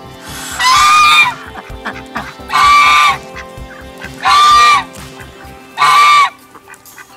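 A white domestic goose honking four times, loud calls each about half a second long and spaced about a second and a half apart.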